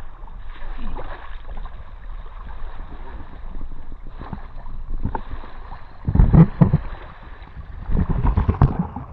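Shallow seawater lapping at a rocky shore, with wind on the microphone. Two louder stretches of rough noise come about six and eight seconds in.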